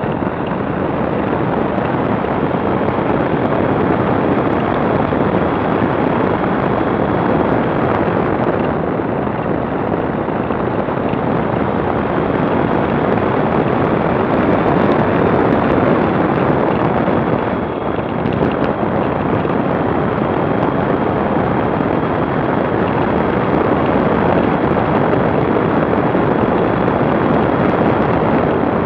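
Steady rush of wind on the microphone with a motorcycle's engine running underneath, heard from a camera riding on the moving bike. It dips briefly a little past halfway.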